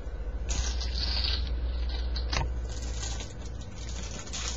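Rubbing and scraping noise from a webcam being handled and repositioned, picked up by its own microphone, with a rustle about a second in and a single click about two and a half seconds in.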